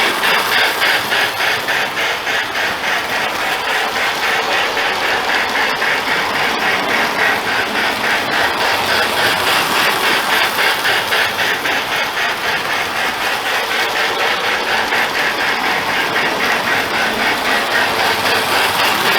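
Marx Sound of Power electric toy train running on its track: the motor and gears whir under a fast, even pulsing rhythm that holds steady throughout.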